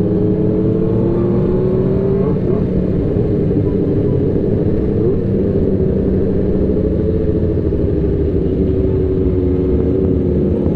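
Sport motorcycle engine running at a steady cruising speed, heard from the rider's seat, its pitch climbing slightly over the first two seconds and then holding steady, with wind rumbling on the microphone.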